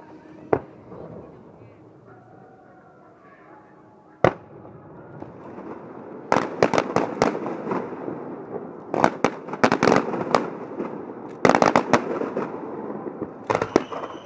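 Aerial fireworks going off: a single sharp bang about half a second in and another about four seconds in, then from about six seconds rapid runs of crackling bangs in several close clusters.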